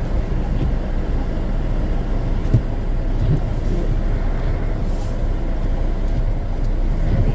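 Ford Edge driving on a snow-covered road, heard from inside the cabin: a steady low rumble of tyres and engine, with one sharp knock about two and a half seconds in.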